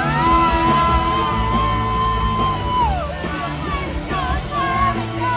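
Live rock band playing loudly over a big sound system, with a sung note held high for nearly three seconds that then slides down, followed by shorter sung phrases over bass and drums.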